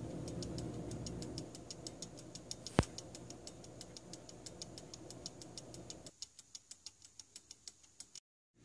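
An 18th-century French fusee watch movement ticking, its verge escapement beating steadily about five times a second as the balance and hairspring swing. A single sharper click comes about three seconds in, and a low background hum drops away about six seconds in.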